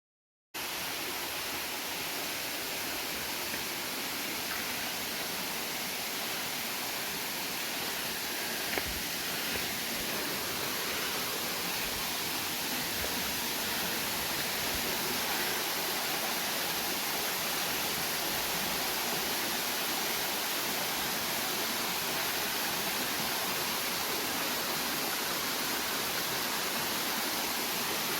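Steady rushing of flowing or falling water, an even hiss that starts abruptly about half a second in.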